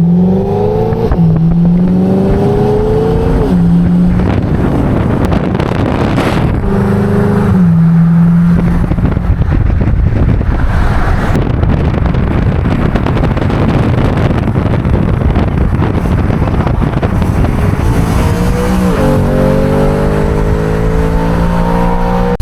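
BMW E92 M3's V8 engine accelerating through the gears, revs climbing and dropping back at each upshift: about a second in, near three and a half seconds, and about nineteen seconds in. A loud rushing noise takes over through the middle.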